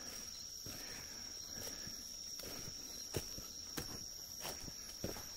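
Footsteps on the forest floor at night, with a few sharp steps in the second half, over a steady high-pitched chorus of night insects.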